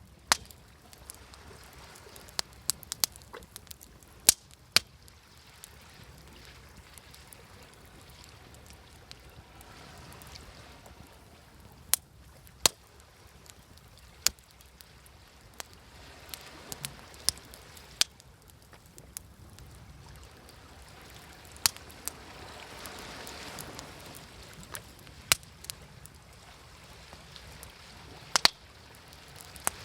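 Wood fire crackling, with irregular sharp pops and snaps, over gentle sea waves washing in that swell up about two-thirds of the way through.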